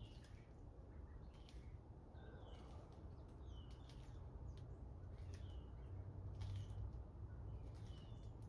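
A bird calling over and over, about once a second, in short high chirps that fall in pitch, over a faint steady low hum from a 2016 Amana heat pump running in heat mode.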